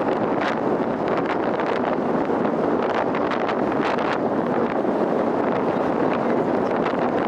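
Steady wind noise buffeting the microphone on a moving ferry, with a constant rush underneath and faint gusty flutters.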